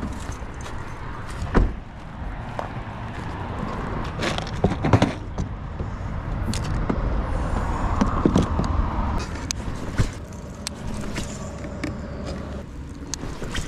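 Knocks, clunks and rattles of fishing gear being handled on a plastic fishing kayak, as rods are set into the rod holders and a hard tackle case is lifted. There are sharp clunks about one and a half, five and ten seconds in, over a steady low rumble.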